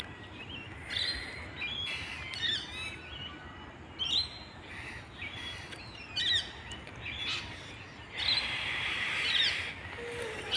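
Several birds chirping and calling, with short gliding whistled notes, and a denser burst of chatter about eight seconds in.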